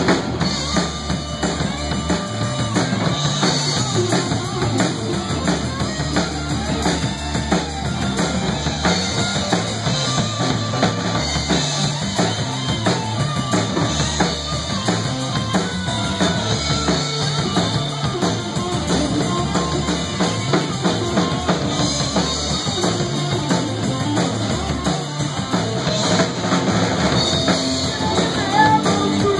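Live rock band playing an instrumental passage: drum kit with bass drum and electric guitar, loud and steady.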